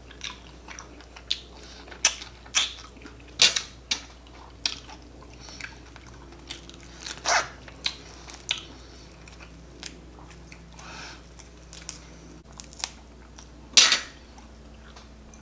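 Close-miked chewing and wet mouth smacks from a person eating shrimp, with irregular sharp clicks and a few louder smacks.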